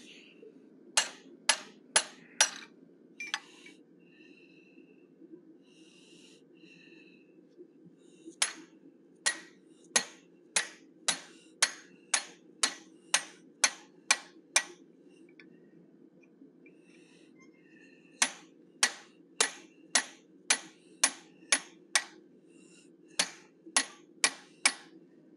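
Hand hammer striking a quarter-inch fuller held against red-hot steel, setting the line at the bridge of a forged bear head's snout. Sharp ringing strikes come in runs of about two a second with short pauses between, over a steady low hum.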